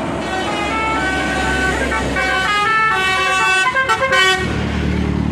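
A bus's multi-tone telolet 'Basuri' horn playing a quick melody of stepped notes over the bus engine's low rumble, loudest about four seconds in.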